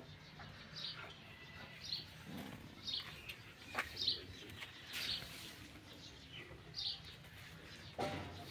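A small bird chirping repeatedly, short high chirps about once a second, with a few faint clicks.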